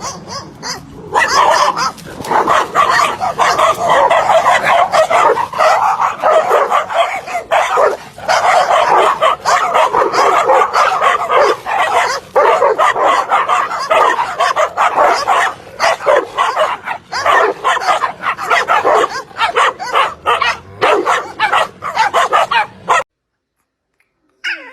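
A dog barking and yipping in a rapid, loud, unbroken string, which stops abruptly near the end.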